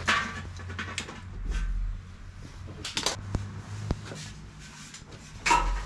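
Irregular metallic clanks and knocks from handling metal blower equipment, with a few sharp strikes and the loudest clatter near the end, over a low steady hum.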